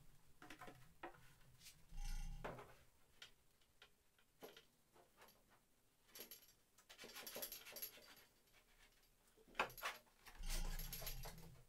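Faint, scattered clicks and knocks as an aluminum wing tube and a composite wing panel are handled and fitted to a large RC jet fuselage, with a sharper knock near the end.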